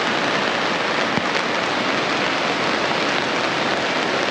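Steady, continuous rain falling close around the microphone: an even hiss that holds level throughout.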